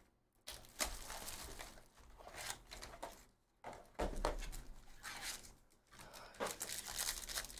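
Foil-wrapped baseball card packs and their small cardboard box handled and opened by hand: bursts of crinkling and tearing rustles, with two brief pauses.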